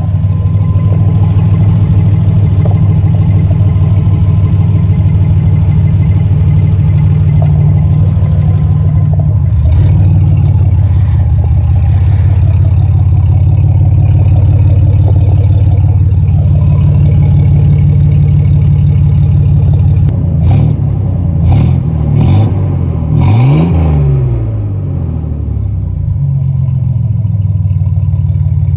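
1995 Chevy S10's 4.3-liter V6 running loud through its dual Flowmaster exhaust, idling steadily. In the last third it is revved several times in quick succession, the pitch climbing and falling with each blip, then it settles back to idle.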